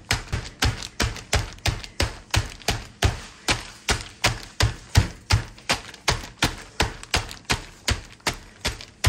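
A wooden pounder thudding against a cooked rotisserie chicken sealed in a plastic freezer bag on a countertop, about three strikes a second in a steady rhythm, breaking the meat up off the bones.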